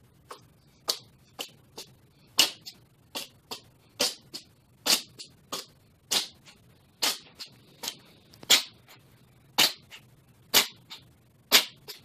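Cat sneezing over and over in a sneezing fit: a run of short, sharp sneezes, one or two a second, some much louder than others.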